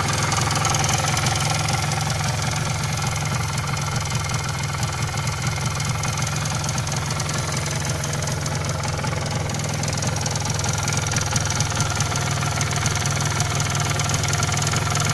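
MZ ETZ 250 single-cylinder two-stroke engine idling steadily, clattering and rattling as it runs.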